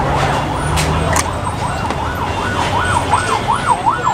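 A vehicle siren sounding a fast up-and-down yelp, about three sweeps a second, with two sharp clicks about a second in.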